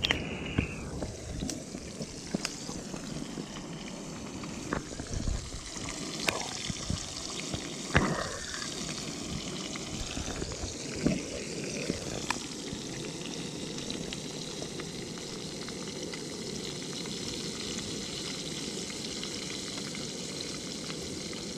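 Whole fish frying in hot oil in a metal wok on a portable burner, sizzling steadily, with oil ladled over them. A few sharp clinks of a metal ladle and tongs against the pan in the first dozen seconds, then just the steady sizzle.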